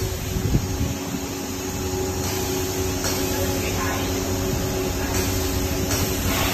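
Molded pulp production machinery running with a steady hum and drone, with several short hisses of air at intervals.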